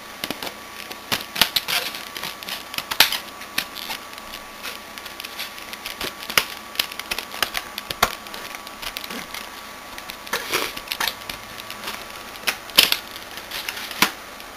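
A cardboard box and its packaging being opened and handled: irregular clicks, taps and rustles, with a few sharper knocks. A faint steady high tone runs underneath.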